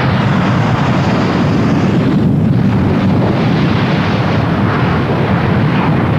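Harrier jump jet's Rolls-Royce Pegasus engine at full throttle during a takeoff roll: a loud, steady jet noise.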